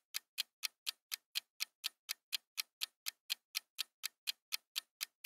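Countdown-timer sound effect of clock ticks, evenly spaced at about four a second, marking the time left to answer a quiz question.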